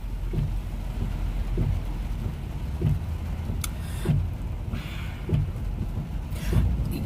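Steady low rumble of road and engine noise inside a moving car's cabin, with faint short sounds recurring about every second and a single click a little past the middle.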